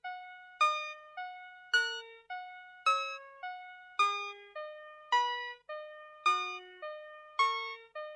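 Vtech Schlummerschnuffi toy playing one of its built-in classical tunes in simple electronic keyboard-like tones, a loud accented note about every second followed by two softer ones in a steady three-beat pattern.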